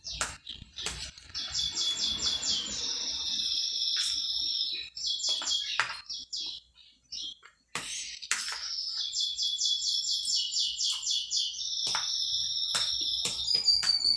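A songbird singing phrases of fast, high trilled chirps with short breaks between them, the last phrase sliding down in pitch. A spoon knocks against a bowl a few times.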